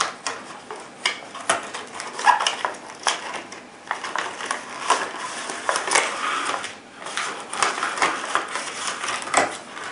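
Product packaging being handled as a flashlight is taken out of its box: irregular crinkling, rustling and clicks.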